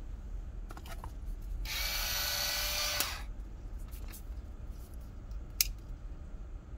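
The small electric motor of a rechargeable salt and pepper mill runs with a steady buzzing whine for about a second and a half, then stops abruptly. Light handling clicks come before it, and a sharp click follows a couple of seconds later.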